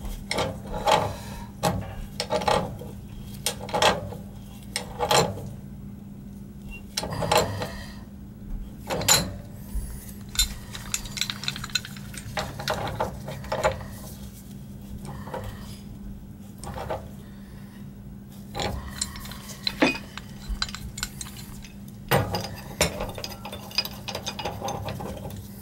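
Steel pipe wrenches clinking, knocking and scraping against threaded gas pipe fittings as the joints above a water heater's gas control valve are tightened. The irregular metallic knocks come every second or so, over a steady low hum.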